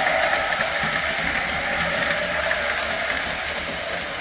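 Lionel 1615 switcher model locomotive running on its track: a steady motor and gear whine with light clicking from the wheels.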